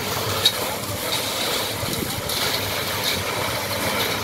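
Concrete pump truck's diesel engine running steadily while concrete is pumped through the boom hose, with a sharp click about half a second in.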